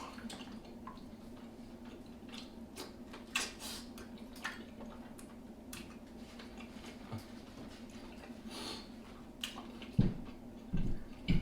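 Close-miked eating of a seafood boil: scattered soft clicks, smacks and ticks of chewing and handling the food, with a few low thumps near the end.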